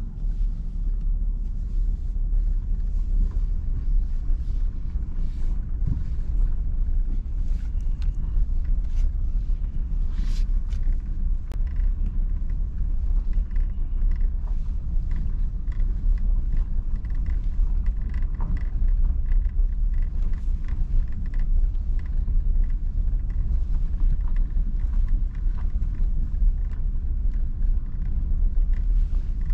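Steady low rumble of a vehicle driving slowly, heard from inside the cab, with scattered clicks and pops of gravel under the tyres.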